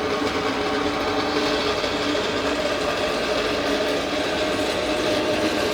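Power drill running steadily with an even motor whine, turning an adjustable basketball hoop's height-adjustment crank through a modified drill bit to change the hoop's height.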